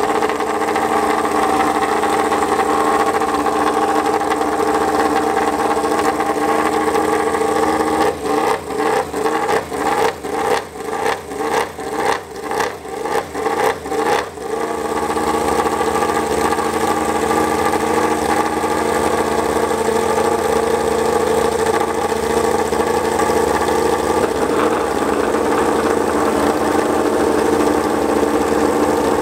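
Yamaha YZR-M1 MotoGP bike's crossplane inline-four engine, just started with an external starter, running at a steady fast idle. For about six seconds in the middle it is blipped about a dozen times in quick succession, then it settles back to a steady idle.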